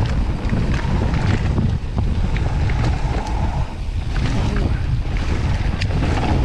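Wind buffeting the microphone and knobby tyres rolling over a dirt trail on a fast mountain-bike descent, a steady rumble with scattered small clicks and rattles from the bike.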